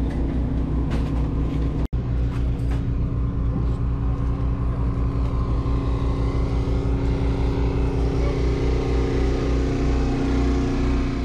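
An engine running steadily close by: a low, pulsing drone that holds an even pitch, briefly cut off for an instant about two seconds in.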